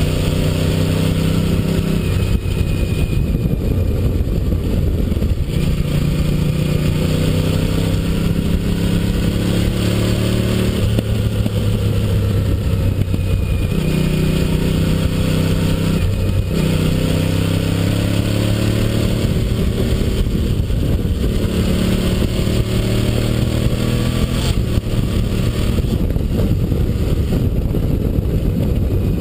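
Honda SP1's litre V-twin motorcycle engine under way. The revs climb and drop again and again as the rider accelerates and backs off.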